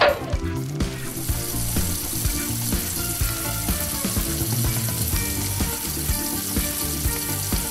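Steady hissing of a water-spray sound effect, starting about a second in, over background music with a steady beat; a short falling whistle-like tone sounds right at the start.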